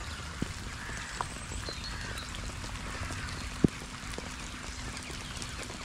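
Steady hiss of falling rain with a flock of waterbirds calling faintly in the distance, and a few sharp drips landing close by, the loudest a little past halfway.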